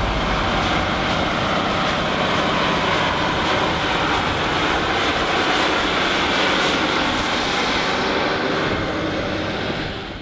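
John Deere 8RX four-track tractor running steadily under load as it hauls a loaded beet trailer through mud, a dense, even machine noise that fades out near the end.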